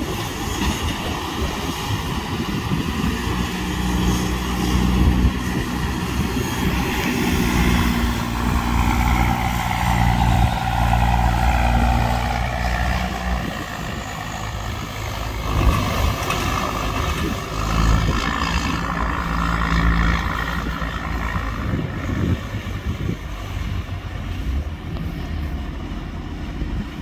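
1991 BMY M925A2 6x6 military truck's turbocharged six-cylinder diesel engine running under load, with the revs rising and falling. A whine drops in pitch about eight to twelve seconds in, and the engine picks up again a few seconds later.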